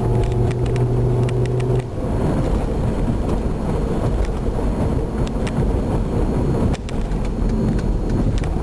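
A Volvo car giving a loud, steady low-pitched buzz that cuts off suddenly about two seconds in, leaving the rumble of the car driving. The buzz is the fault the owner hears in turns, alongside the transmission slipping out of gear.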